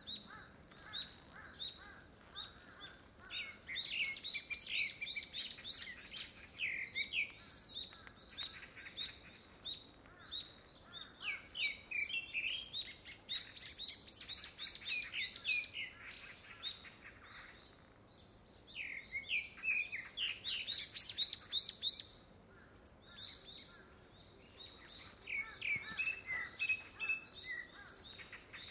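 Male gray-backed thrush singing: several phrases of quick, clear whistled and twittering notes, each a few seconds long, with short pauses between. The recordist takes it for a courtship song ahead of a second brood.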